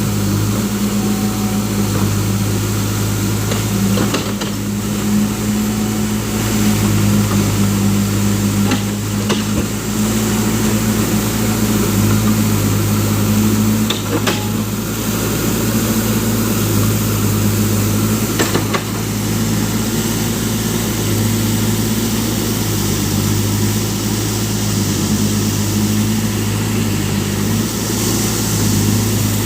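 Case Super M backhoe loader's diesel engine running steadily, with a few sharp knocks now and then.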